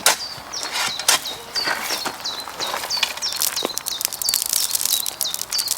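A small bird chirping over and over, short high chirps that each drop in pitch, a few a second and coming faster toward the end, with a few sharp clicks mixed in.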